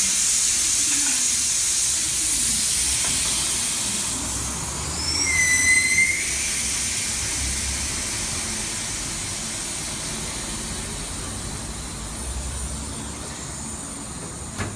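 Air hissing out through the valve of a kei car's tyre as it is deflated, the hiss slowly fading as the pressure drops, with a brief squealing whistle about five seconds in.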